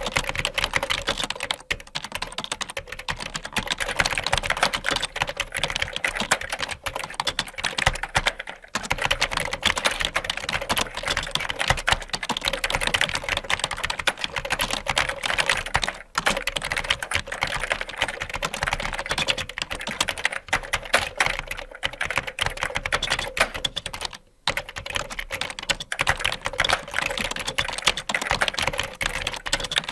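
Computer keyboard being typed on fast and continuously, a dense run of key clicks broken by a few brief pauses, the longest about three quarters of the way in.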